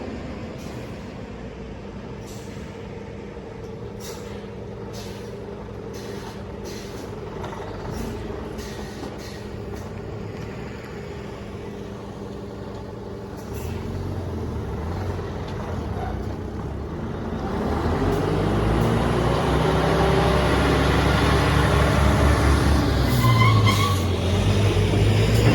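Large military diesel truck idling steadily, then pulling away: its engine grows louder and rises and falls in pitch through the gears. Faint ticks sound over the first ten seconds or so, and a short air-brake hiss comes near the end.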